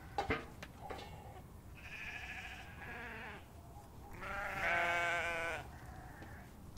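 Sheep bleating: a short call about two seconds in, then a longer, louder, wavering bleat a little past the middle. Two sharp clicks come right at the start.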